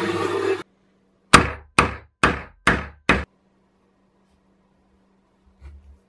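A bench machine's motor runs with a twist drill spinning in its chuck, then cuts off suddenly within the first second. Then come five sharp knocks, about two a second, each ringing briefly.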